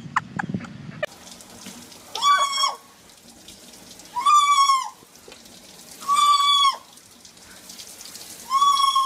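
Macaw calling four times, about two seconds apart: each call is a loud held note of under a second that drops in pitch at its end.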